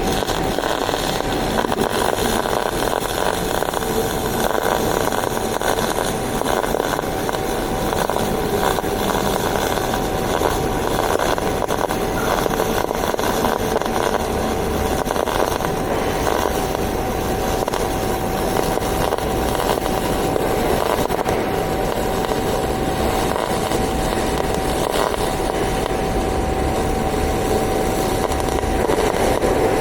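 MIG (GMAW) welding arc with solid wire running a fillet weld: a steady, unbroken crackling sizzle with a faint steady tone underneath.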